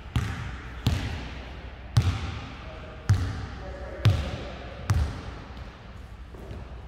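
A basketball being dribbled on a gym's sprung floor: six bounces about a second apart, each a deep thud with an echo in the large hall. The dribbling stops about five seconds in.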